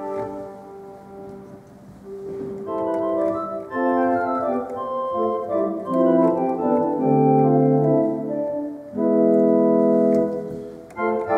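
Viscount Physis digital organ playing sustained chords, soft for the first couple of seconds, then fuller and louder from about three seconds in.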